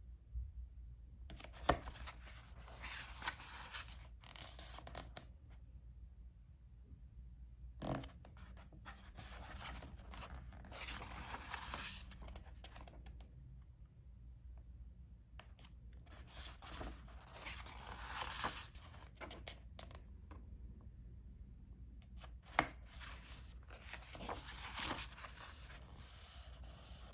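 Pages of a hardcover picture book being handled and turned: paper rustling and sliding in four bursts of a few seconds each, with a few sharp ticks, over a low steady hum.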